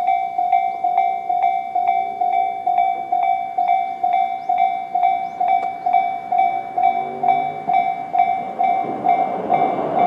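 Japanese electronic level-crossing alarm (Tobu 'sound C' type) ringing in even strikes, a little under three a second. Near the end the rumble of an approaching train rises under it.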